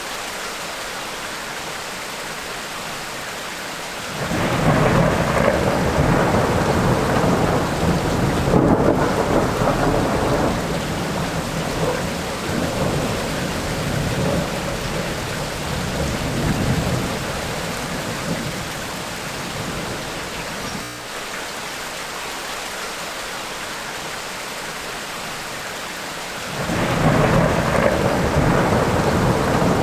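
Steady rain during a tropical thunderstorm, with rolling thunder: a long rumble sets in about four seconds in and dies away over some fifteen seconds, and another begins near the end.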